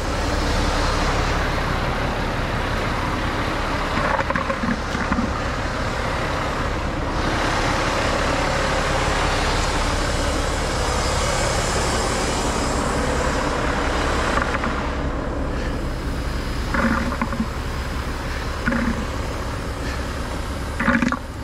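Front-load garbage truck's engine running steadily, a continuous low rumble with a wide hiss over it, and a few short low knocks near the end.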